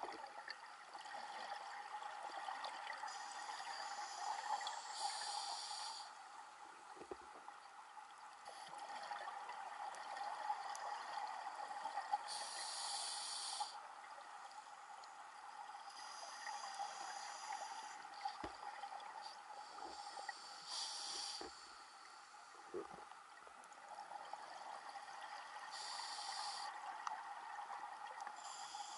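Scuba diver breathing through a regulator underwater: a burst of hissing and bubbling every four to eight seconds over a steady background noise, with a few low knocks.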